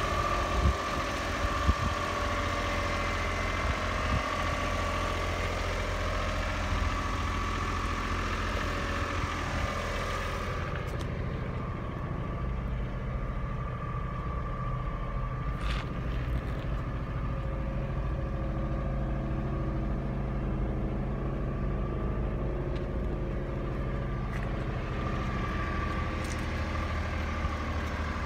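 Honda Acty HA4 kei truck's small three-cylinder engine idling steadily, with a few light knocks near the start.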